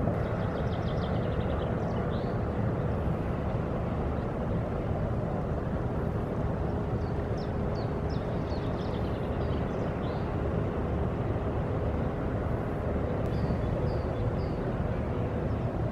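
Steady low harbour rumble with a faint steady hum under it, and small bird chirps a few times: just after the start, in the middle and near the end.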